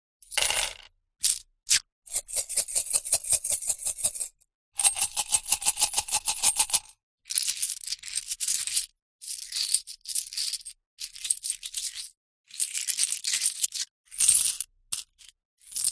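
Metal coins being handled, clinking and jingling in repeated short bursts with brief pauses between. Two longer runs are fast, even rattling clicks.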